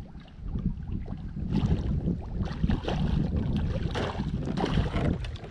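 Wind buffeting the microphone in a steady low rumble, joined about a second and a half in by a louder rushing noise.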